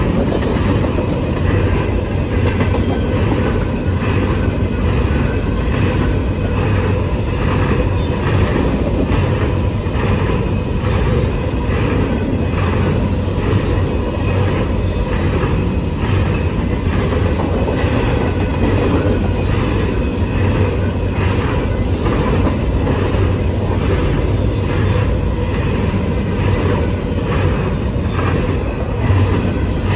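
Empty covered grain hopper cars of a long freight train rolling past: a steady rumble with the wheels clicking over rail joints at a regular beat, and a thin steady whine above it.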